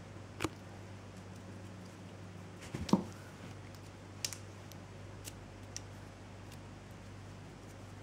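A few scattered light taps and clicks, the loudest a dull knock about three seconds in, over a steady low hum.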